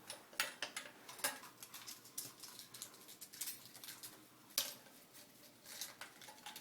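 A toilet flapper's metal chain being handled by feel inside the tank: irregular light metallic clicks and clinks as the links rattle against the flush lever and tank fittings.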